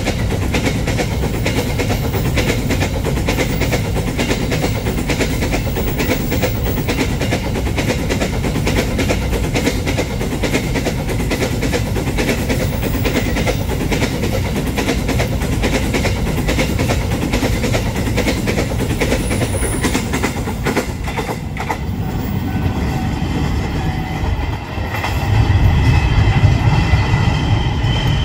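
Freight train of empty flat wagons rolling past, the wheels clattering and rattling steadily over the rail joints. Near the end the sound changes to a louder low rumble with steady ringing tones over it.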